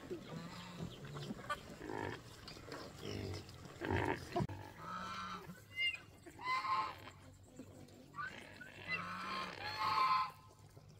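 Pigs squealing, several high-pitched calls a second or two apart.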